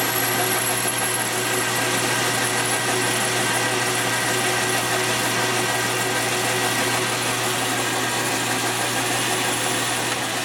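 Metal lathe running steadily through a cut, taking material off a turned steel part: a constant machine hum with a faint steady high whine.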